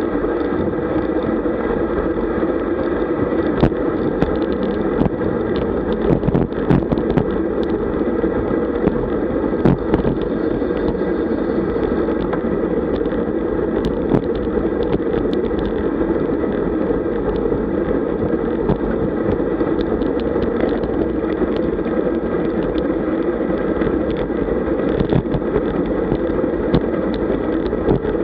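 Steady rush of wind and road-tyre noise on a bike-mounted camera riding at about 40 km/h in a pack of road bicycles, with scattered small knocks and clicks from the road surface.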